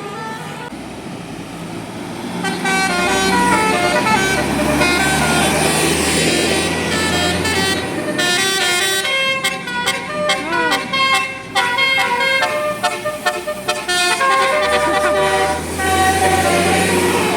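Bus telolet horn, a Basuri-type electric musical horn, playing a melody of quick stepping notes over the bus's low engine rumble. The tune starts a couple of seconds in.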